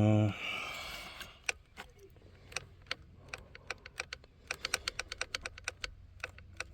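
A brief loud, low steady tone cuts off just after the start. Then come irregular light clicks and rattles from hand work on the steering wheel's horn button contacts, busier about two thirds of the way through.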